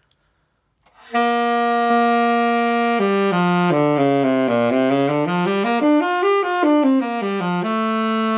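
Saxophone with a D'Addario Select Jazz 3 Hard reed, played with a clean tone and no squeak. It holds one note, then runs down and back up through a series of notes and ends on a held note. The player's chin is stretched and the lower lip held still, the embouchure meant to stop squeaks.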